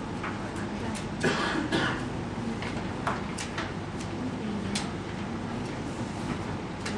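Steady room noise with a low hum in a quiet meeting room, broken by a few small clicks and rustles, the loudest pair about a second in.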